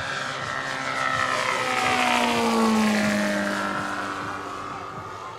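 Engine and propeller of a large RC scale Harvard AT-16 (T-6 Texan) model airplane flying past overhead: it grows louder to a peak about halfway through, its pitch dropping as it goes by, then fades.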